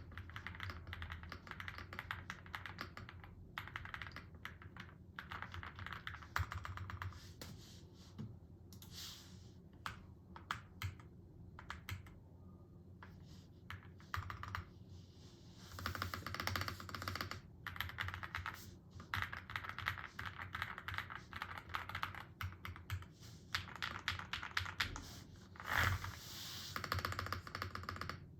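Typing on a QwertyKeys QK75N mechanical keyboard with pre-lubed Domikey Choco Donuts switches on a flex-cut FR4 plate. Fast runs of keystrokes with brief pauses, and one louder stroke near the end.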